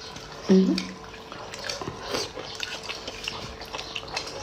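A person eating: wet slurping and chewing sounds as broth is sipped from a spoon, with small clicks and ticks, and a brief hummed "mm" about half a second in. A faint steady hum runs underneath.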